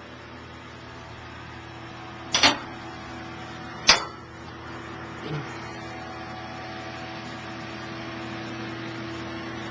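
Steady whirring hum of computer rack fans and servers, holding a few even tones. Two sharp knocks stand out, about two and a half seconds in and again a second and a half later, with a fainter bump soon after.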